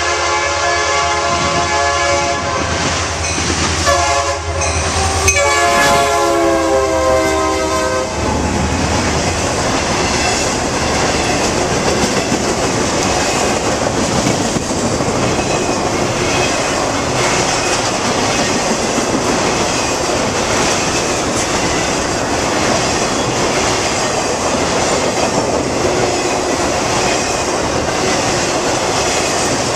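Norfolk Southern intermodal freight train passing close by. The locomotive's horn sounds four blasts, long, long, short, long (the grade-crossing warning pattern), over the diesel's low rumble. From about eight seconds in, trailers on flatcars and double-stack container cars roll past with steady wheel-on-rail noise and clacking.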